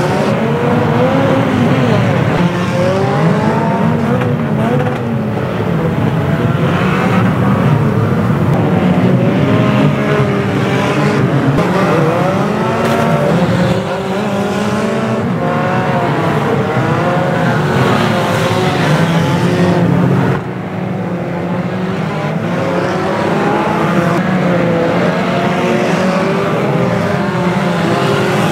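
Many banger racing cars' engines running and revving together, their pitches rising and falling over one another as the cars race and barge into each other on a shale track.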